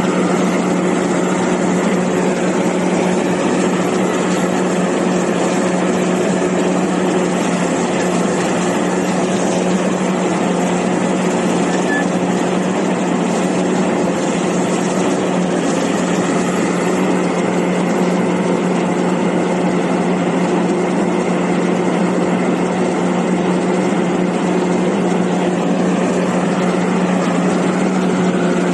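Komatsu PC450 crawler excavator's diesel engine running steadily at working speed while the machine digs, a constant loud hum that barely changes.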